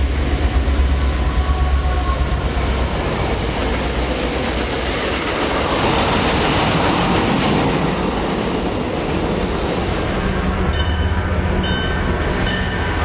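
MBTA diesel commuter train with bilevel coaches passing through the station at speed: a loud, steady rush of wheels on rails with clickety-clack, over a low rumble. A few faint ticks and tones join in about ten seconds in.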